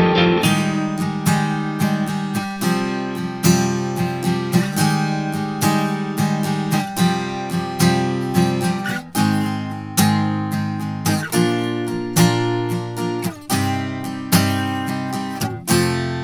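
Steel-string acoustic guitar strumming chords, with a chord change every two seconds or so. Near the end a last chord is struck and left to ring out and fade.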